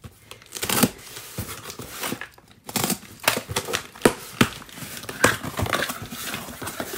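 Cardboard shipping box being opened by hand: the taped seam torn and the flaps pulled back, with a series of sharp rips, scrapes and crinkling of cardboard and paper.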